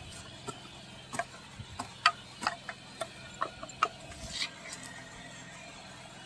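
Hand hoe's metal blade chopping and scraping into dry, clumpy soil: about ten irregular sharp knocks over the first four seconds, then it goes quieter.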